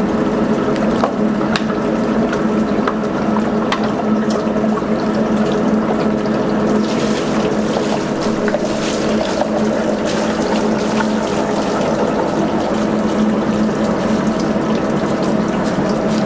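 Rice cake (garaetteok) extruding machine running with a steady hum, with a few light clicks in the first few seconds. Running water hisses along with it from about seven seconds in.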